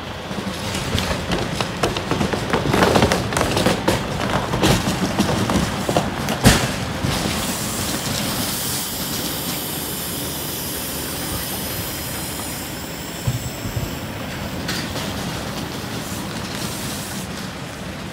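Semi-trailer's tandem tires scrubbing and dragging sideways across the pavement as the trailer is twisted through a very tight turn while backing. Crackling and popping come through the first half, with one sharp bang about six seconds in, then a steadier rumble and hiss.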